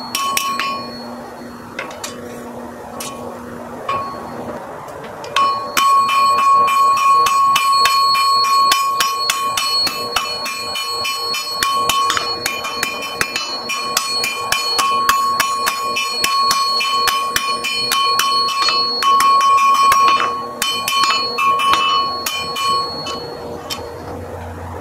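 Hammer blows on red-hot iron on a steel anvil, the anvil ringing with a clear bell-like tone after each strike, sped up to double speed. A few scattered blows in the first five seconds, then fast, steady hammering until near the end.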